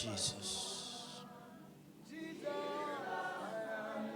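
Worship singing: voices sing "Jesus" at the start, fade briefly, and resume with long held sung notes about two seconds in.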